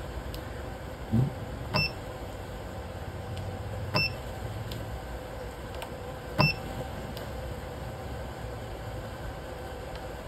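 Steady electrical hum from a spot welder's transformer running with no load. Three short high electronic beeps, each starting with a click, come about two seconds apart, with a dull thump about a second in.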